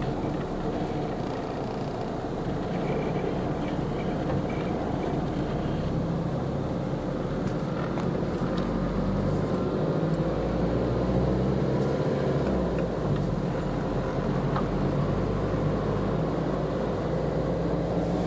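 A car's engine running and tyre noise heard from inside the cabin as the car drives along, a steady low hum that grows slightly louder past the middle.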